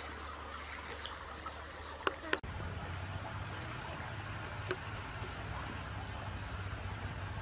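Steady outdoor hiss of running water with insects, broken by two sharp clicks about two seconds in; after an abrupt change a low rumble sits under it.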